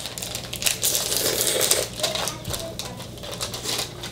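A person eating noodles: rapid wet mouth clicks and smacks of slurping and chewing, densest in the first two seconds and sparser after.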